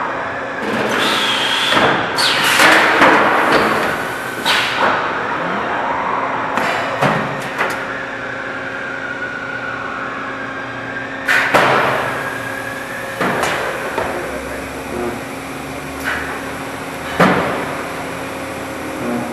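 Oven cavity production line machinery running: a steady machine hum under irregular clanks and knocks, about eight in all, with noisier stretches in the first few seconds.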